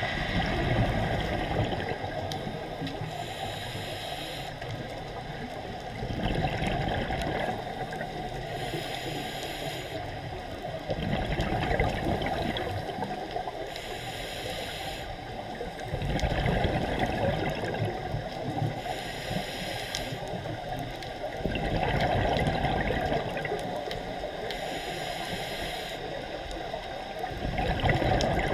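Scuba diver breathing through a regulator underwater: a short hissing inhale, then a longer, louder rumble of exhaled bubbles, the cycle repeating about every five seconds.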